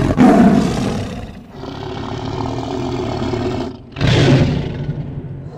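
Tiger roaring twice, once at the start and again about four seconds in, with a quieter, steadier growl between.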